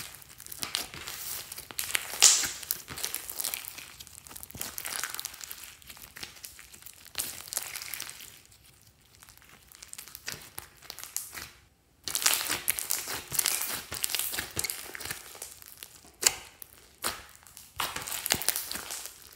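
Hands squeezing, folding and pressing clear slime full of foam beads: irregular crackling and popping of the beads and trapped air, quieter for a few seconds in the middle.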